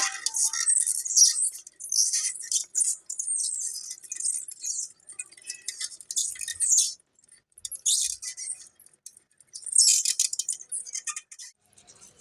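Live crabs making a dense high-pitched crackling and clicking, in bursts of one to three seconds with short pauses between them.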